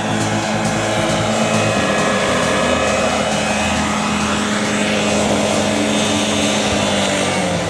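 Henseleit radio-controlled model helicopter's combustion engine and rotor blades running at a steady pitch as it flies in low and settles onto the grass.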